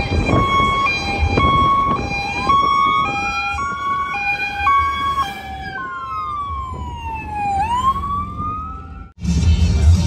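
Two emergency-vehicle sirens sounding together: one steps back and forth between a high and a low tone about once a second, the other slowly wails up and down. Both stop abruptly about nine seconds in, leaving the rumble of the vehicle.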